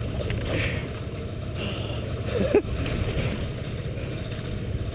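Boat engine running steadily as a low rumble, with water sloshing and splashing as the porbeagle shark moves in the wire cradle at the hull. A short voice-like sound about two and a half seconds in.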